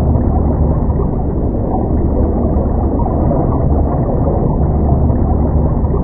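Underwater ambience: a steady, muffled low rumble of moving water, deepest at the bottom end, with no high sounds.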